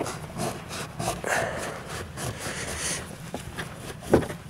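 Terry-cloth towel rubbing and wiping around the fuel pump opening of the fuel tank, a rough scrubbing rustle that eases off after about three seconds. A single sharp knock comes near the end.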